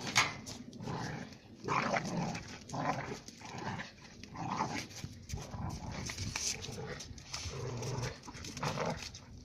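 Two Central Asian Shepherd (alabai) puppies growling at each other as they fight, in a quick series of short bursts.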